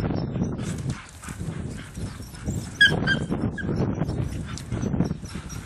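Search spaniel sniffing and panting in quick irregular puffs as it works along the ground, with a few short high squeaks about three seconds in.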